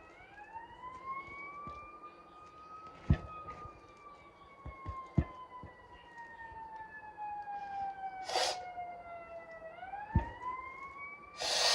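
A wailing siren, its pitch rising over about three seconds, falling slowly for about seven, then rising again near the end. A few sharp thumps and two short hissing bursts, the louder one near the end, sound over it.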